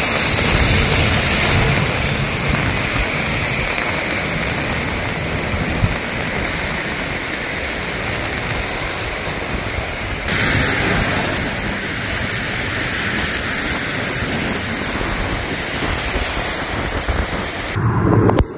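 Swollen, fast-flowing river in flood: a steady loud rush of muddy water, running on as a continuous noise with no distinct events. The sound changes abruptly about ten seconds in, and again near the end, where it gives way to a different scene.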